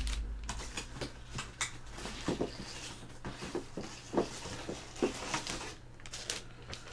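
Hard plastic graded-comic cases (CGC slabs) clicking and tapping against each other as they are handled and set down, in irregular small knocks.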